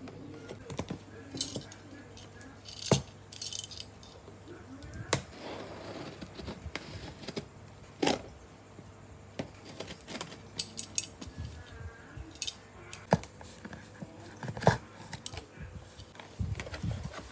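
Hands handling a Nendoroid figure's box and plastic packaging: scattered sharp clicks and taps of hard plastic, with a few short stretches of rustling.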